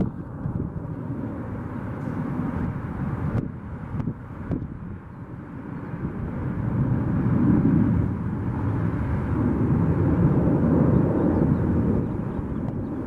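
Airliner jet engine noise: a steady, heavy rumble that eases off a few seconds in, then builds louder again from about six seconds.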